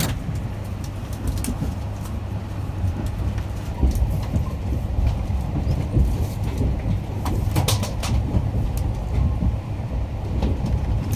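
Limited express train running, heard from inside the carriage: a steady low rumble with occasional short clicks and knocks.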